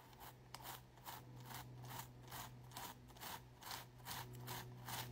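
Toothbrush bristles scrubbing lightly back and forth over a rhinestone-and-pearl fashion earring wet with jewelry-cleaning solution, a faint brushing stroke about three times a second.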